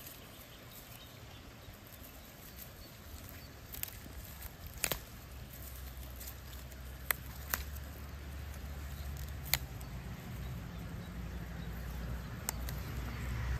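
Rustling in forest undergrowth with a handful of sharp snaps, the loudest a cluster about four to five seconds in, over a low rumble that builds from about five seconds in.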